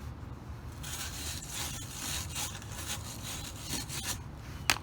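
Hand pipe reamer scraping around the inside of the cut end of 3/4-inch steel EMT conduit in repeated strokes, taking the burr off the inside lip. A sharp click near the end.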